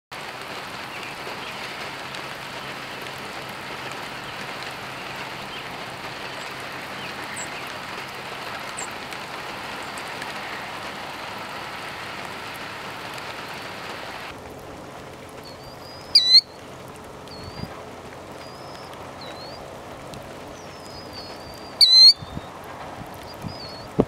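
A steady hiss of light rain that cuts off suddenly about halfway through. High killdeer calls follow: two loud, sharp ones about six seconds apart, with softer calls in between.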